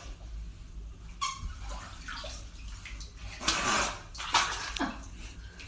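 Water splashing and sloshing in irregular bursts, as in a bathtub, with a few short high sounds among the splashes.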